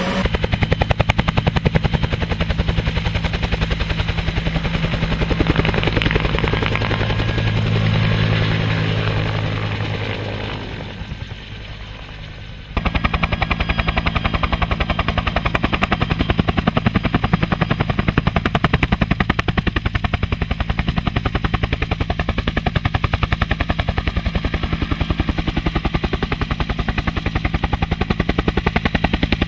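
Bell UH-1H Huey helicopter with its T53 turbine running and two-bladed rotor turning on the ground, swelling and then fading away over the first twelve seconds or so. It cuts suddenly to a Huey hovering close overhead: a loud, steady, rapid rotor chop.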